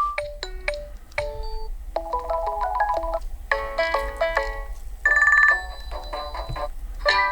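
Nokia G60 5G ringtones played in turn, each cut short: short electronic melodies of quick notes, with a new tune starting every second or two. The loudest is a brief trilling tone about five seconds in.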